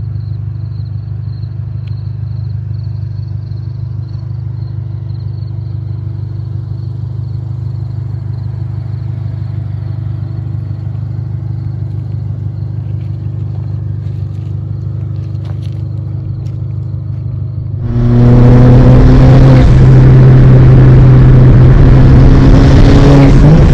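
Stage 3 tuned Ford Fiesta ST's turbocharged 1.6-litre four-cylinder engine running at a steady hum, then about 18 seconds in jumping to a loud, hard pull heard from inside the cabin, its pitch stepping with gear changes.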